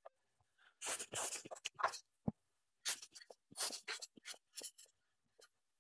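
Short rushes of air from a rubber dust-blower bulb squeezed again and again over the open filter wheel, mixed with small clicks and rustles of handling the parts.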